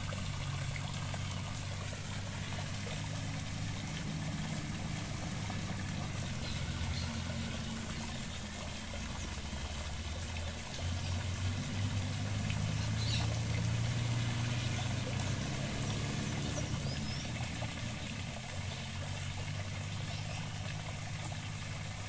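Water pouring from an upright pipe into a small pond, a steady splashing that keeps going, with a low steady hum underneath.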